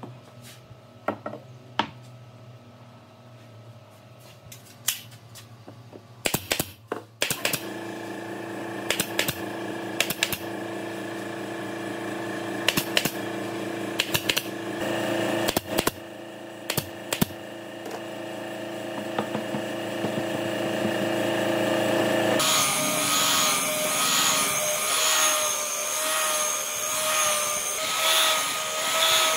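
Woodshop power tools at work. At first there is a low hum with scattered knocks; about seven seconds in, an electric power tool starts and runs steadily with occasional knocks. About twenty-two seconds in, a louder, higher-pitched machine with a wavering whine takes over.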